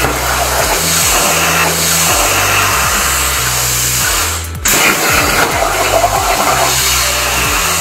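Hypertherm Powermax65 plasma cutter's arc hissing steadily as the CNC torch cuts steel plate, over background music with a stepping bass line. The hiss breaks off briefly about halfway through, then resumes.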